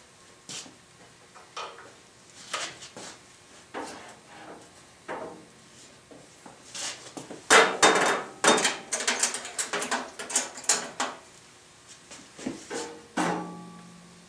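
Tools and metal parts being handled and set down around a bandsaw: scattered knocks, then a busy run of loud clattering in the middle, and near the end a metal clank that rings briefly.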